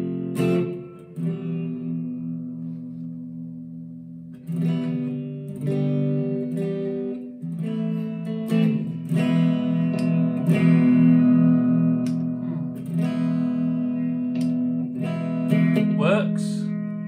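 Harley Benton SC-450 Plus Les Paul-style electric guitar played clean through an amplifier: a chord rings out and fades, more chords are struck, and then the chords are strummed in a steady repeated rhythm.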